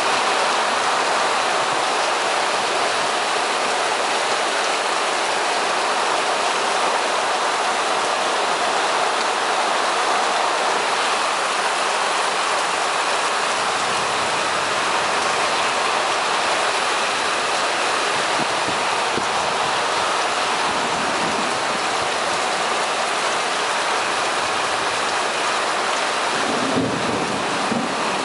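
Heavy thunderstorm rain pouring down as a steady, dense hiss; a low rumble of thunder sets in about halfway through.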